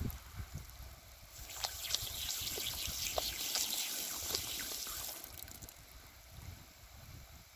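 Water spraying from a garden hose, a steady hiss that grows much louder and splashier for about four seconds in the middle, with scattered sharp splatters as the spray strikes an alpaca's muzzle while it drinks.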